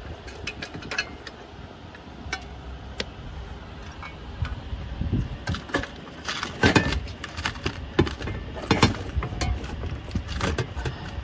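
Light metallic clinks and knocks as a steel bracket, screw and washers are handled and set against the roof trim's grab-handle mount. The clicks are scattered, with a few louder knocks in the second half, over a low steady rumble.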